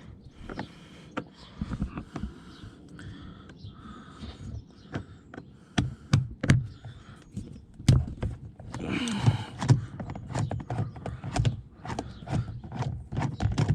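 Screwdriver and plastic car door trim being handled: scattered clicks, taps and knocks with some rustling, louder and more frequent from about six seconds in.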